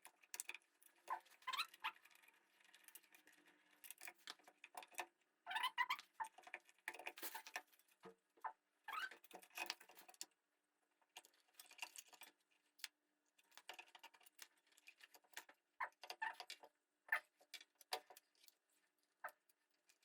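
Faint, irregular clicking and scraping of hand tools and small metal parts on a scooter engine casing, with a few short squeaks, as the cover screws are worked loose.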